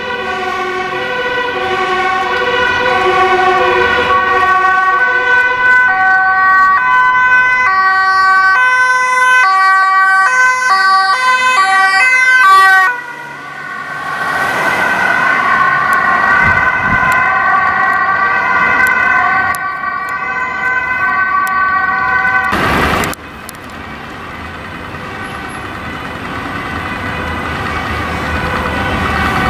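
Dutch ambulance sirens sounding the two-tone hi-lo alarm, alternating between two pitches, as ambulances drive with urgency through traffic. The siren cuts off abruptly twice, at about 13 s and 23 s. After the second cut there is quieter traffic noise that builds toward the end.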